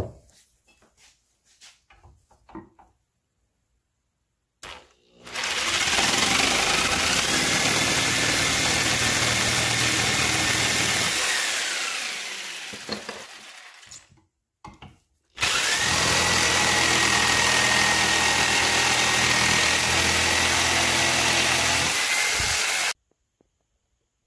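Corded electric jigsaw cutting through the old wooden rocker of a rocking chair, in two long runs with a short pause between. The first run winds down slowly with a falling whine; the second stops sharply.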